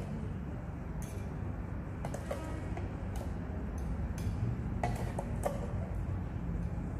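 Irregular light clicks and taps of metal at a coffee grinder's outlet as ground coffee is cleared out by hand, over a steady low hum.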